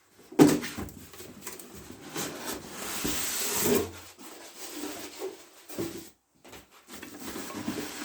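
Unpacking and handling sounds: a sharp knock about half a second in, packaging rustling for a second or so near the middle, then light knocks and rubbing as parts are handled.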